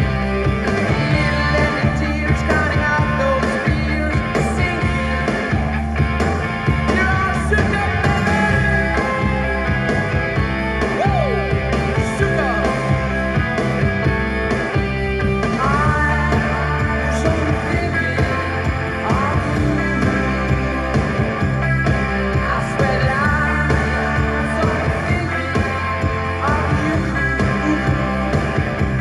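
Rock music playing through a Pioneer stereo receiver and its speakers.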